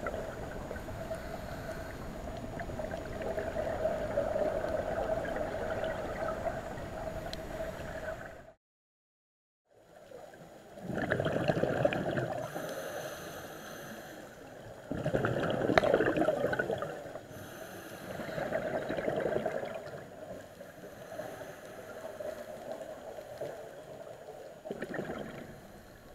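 Underwater sound of a scuba dive: a steady hum for the first eight seconds or so, which cuts out for about a second. After that come bursts of exhaled regulator bubbles every three to four seconds.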